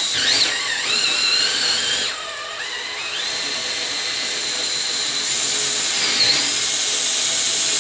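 Electric drill boring a 3/8-inch hole through a small plywood block. Its whine wavers in pitch at first, drops lower about two seconds in as the bit bites, then climbs back and runs steadily.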